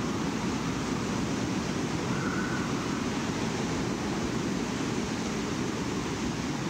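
Steady low rushing noise, like wind, from a black metal demo cassette, with a faint short tone about two seconds in and no instruments playing.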